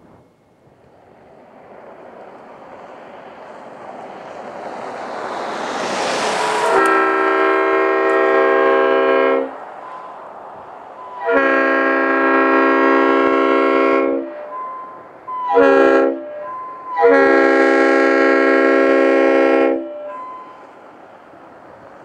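A car drives past with rising road noise. A Leslie RS5T multi-chime locomotive air horn mounted on its roof then sounds four blasts in the long-long-short-long grade-crossing pattern, each a full steady chord. The horn is run off a 32-gallon compressed-air tank setup.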